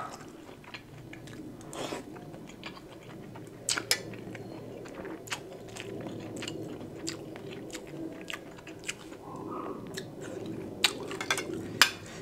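A person chewing food close to the microphone, with scattered sharp clicks and smacks of mouth sounds.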